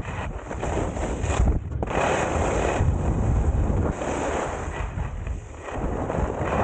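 Wind noise buffeting the microphone of a helmet-mounted camera while skiing downhill, over a rushing hiss of skis sliding on snow that swells and eases every second or two.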